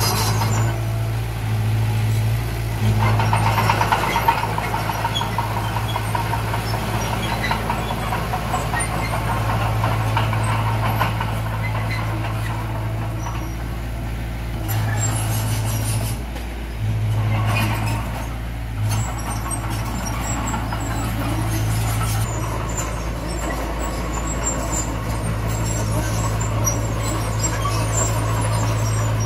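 A heavy diesel earthmoving machine's engine running, its steady low hum dropping away and coming back several times, with a bed of mechanical noise and squeaks over it.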